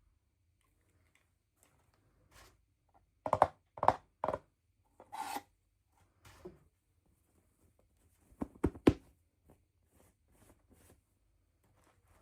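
Handling noises of small objects and packaging: a few quick knocks and rustles in two clusters, about three seconds in and again about eight and a half seconds in, with faint scraping between.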